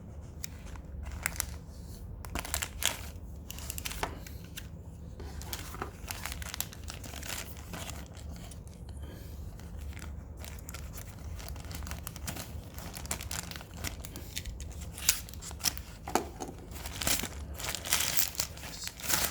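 Delivery packaging being torn open and crinkled by hand: irregular rustling, crackling and tearing, busier near the end, over a steady low hum.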